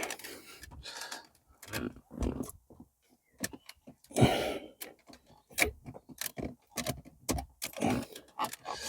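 Plastic dashboard trim in a Fiat 500 being pulled and worked loose by hand, its clips resisting: irregular clicks and knocks, the loudest about four seconds in.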